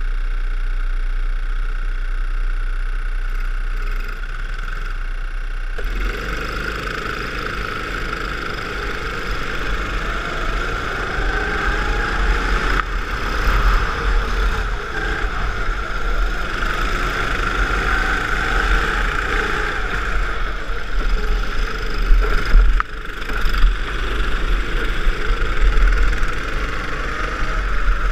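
Small go-kart engines running, heard from onboard a kart in a pack of karts. The sound is steady and lower for about the first six seconds, then louder and busier, with the engine note rising and falling as the karts accelerate and slow for corners.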